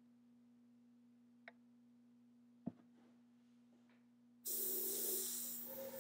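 A low steady hum with one sharp click a bit under three seconds in, then a loud hiss of blown air starts suddenly about four and a half seconds in and keeps going, pushing wet alcohol ink across a porcelain egg to reshape the design.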